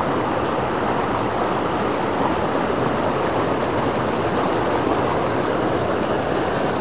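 Fast mountain torrent rushing and splashing over boulders and small cascades: a steady, even rush of water.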